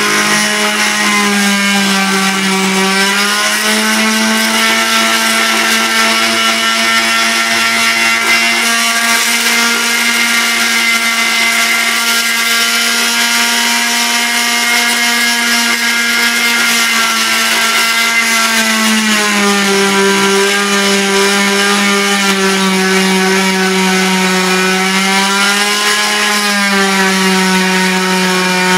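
Oscillating multi-tool running steadily as its blade cuts into a thick slice of log, a loud buzzing hum. Its pitch dips as the blade is pressed into the wood, about two seconds in and again from about two-thirds of the way through, and rises again as the pressure eases.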